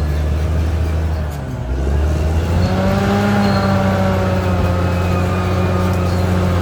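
Caterpillar D6R XL bulldozer's diesel engine running with a steady low drone. It dips briefly about a second and a half in, then picks up again with a whine that rises and falls in pitch.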